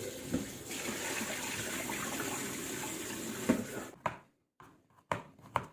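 Water running from a tap into a sink, with a few knocks, stopping abruptly about four seconds in; a few short clicks follow.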